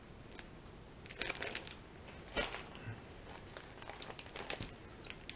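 Plastic bags of loose pipe tobacco being handled, crinkling faintly in a few short rustles.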